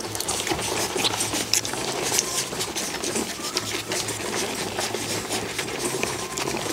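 Golden retriever puppies suckling at their mother, a dense run of quick wet smacking and clicking sounds, over a steady low hum.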